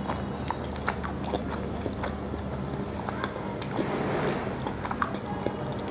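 Close-miked chewing of a soft cream-filled milk sweet (malai sandwich), with scattered light clicks of a fork against a china plate.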